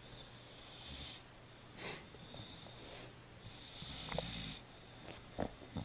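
Alapaha Blue Blood Bulldog puppies snoring in their sleep: two long snoring breaths about three seconds apart, with shorter breath sounds between.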